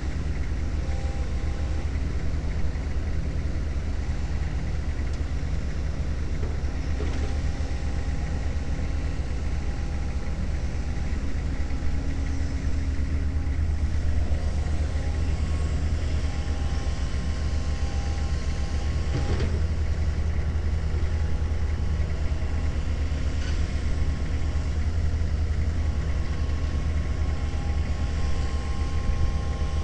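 Diesel engines running steadily as a low drone, with the Hitachi EX150LC excavator's engine and hydraulics working while it climbs onto a lowboy trailer. A few clanks from its steel tracks on the trailer.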